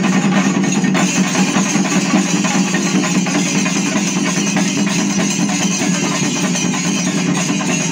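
A chenda melam troupe of Kerala chenda drums beaten with sticks, playing a fast, continuous, dense rhythm at a steady loud level.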